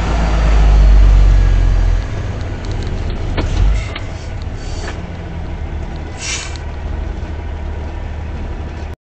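A truck's cab on the move: a steady engine and road rumble, heaviest in the first two seconds, with a few sharp clicks around three to four seconds in and a short hiss about six seconds in. The sound cuts off abruptly near the end.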